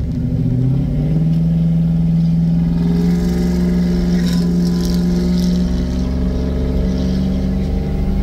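Ram pickup's supercharged Hemi V8 under way, heard from inside the cab: a steady engine drone whose pitch steps up about a second in and then holds.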